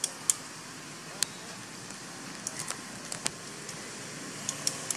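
Steady outdoor background hiss broken by about a dozen short, sharp clicks and crackles at irregular intervals, the loudest about a third of a second in.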